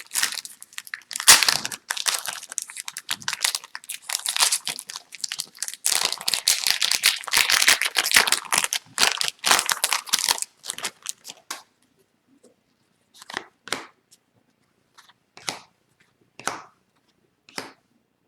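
Foil wrapper of a hockey card pack being torn open and crinkled, a dense crackling for about the first eleven seconds. Then about eight short, separate swishes as the cards are slid and flicked through one at a time.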